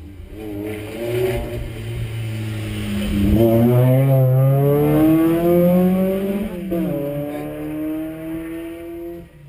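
Rally car's engine revving from inside the cabin: the pitch climbs steadily for a few seconds, drops about two-thirds of the way in, then climbs again. The car stays put throughout, so the revving is probably not moving it.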